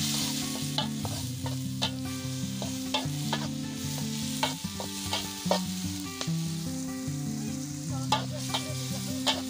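Squid and vegetables stir-frying in an aluminium wok: the oil sizzles steadily while a metal spatula scrapes and clinks against the pan about once a second.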